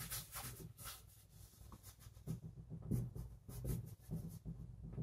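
Faint, scratchy strokes of oil paint being worked onto a painting board, in two quick bunches with a short lull between them.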